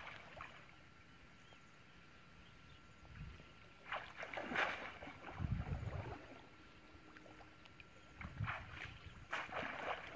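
Water splashing and sloshing as a woven basket fish trap is plunged and pushed through shallow muddy water, in bursts about four seconds in and again near the end, with low thumps between.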